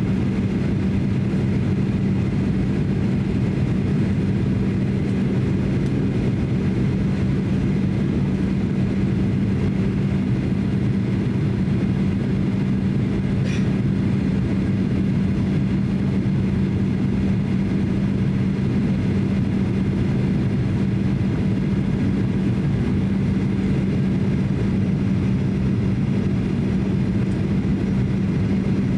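Steady cabin noise inside a Boeing 737-800 in flight: the low drone of its CFM56-7B engines and rushing air, with a constant low hum.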